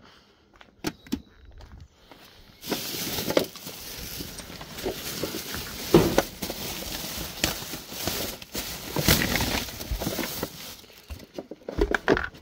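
Plastic rubbish bag rustling and crinkling as it is handled and rummaged through, with items inside knocking. A few light knocks come first, and the rustling starts about three seconds in and dies down near the end.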